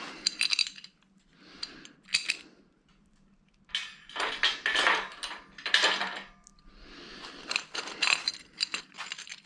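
Metal brackets clinking and clattering as they are handled on an aluminum-extrusion frame, in scattered bursts with the busiest clatter about four to six seconds in.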